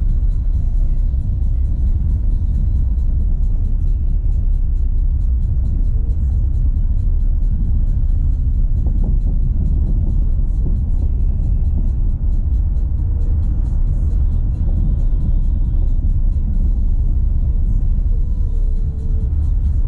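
Continuous low rumble of a Renault Sandero Stepway 2 driving on a dirt road, with tyre and suspension noise heard from inside the car. The car is being checked for a small knock in the right-side suspension. Music plays faintly along with it.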